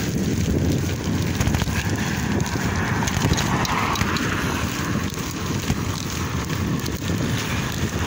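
Wind buffeting the microphone of a phone carried while cycling: a steady low rumble with scattered small crackles.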